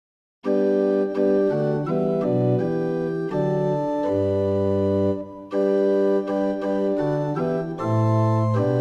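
Sampled organ from the Metropolis Ark 2 Hochbaum Organ library playing sustained chords on its 8' and 4' stops together, with a moving bass line. It starts about half a second in, with the notes changing every half second or so and a brief break a little past the middle.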